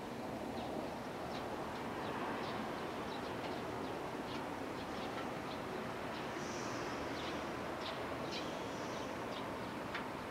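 Small birds chirping in many short notes, with a couple of longer high calls past the middle, over a steady background rumble of outdoor noise.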